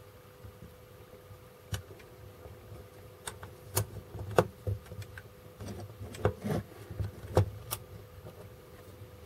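Small plastic parts of a desoldering gun handled and pressed into its plastic housing: a scattering of sharp clicks and light knocks, the loudest about four and a half seconds in.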